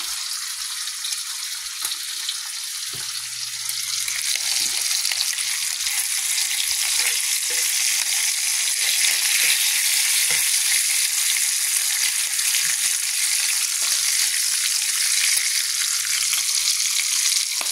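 Frying: butter and bacon grease bubbling in a pan, then strips of bacon frying in a skillet, a steady hiss with scattered small pops that grows louder a few seconds in.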